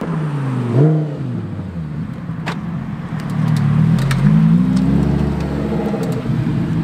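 Lamborghini Huracán Performante's V10 engine at low speed as the car turns in and rolls past, the revs rising briefly about a second in and again, higher and longer, around the middle before easing off.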